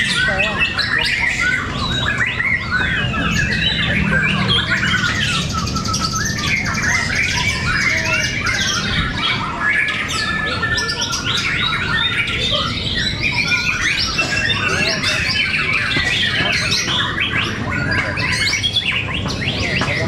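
Many caged white-rumped shamas (murai batu) singing against each other at once, a dense, unbroken tangle of rapid whistled phrases, glides and chatter.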